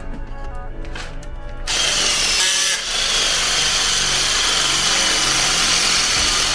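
Electric drill with a large masonry bit boring into a cinder block wall, starting abruptly about a second and a half in and running steadily under load, with a brief change in its sound about a second later. Background music plays before the drill starts.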